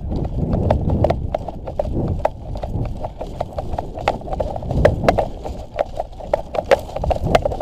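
Footsteps over dry ground and brush: irregular crunching clicks, a few a second, over dull thumps.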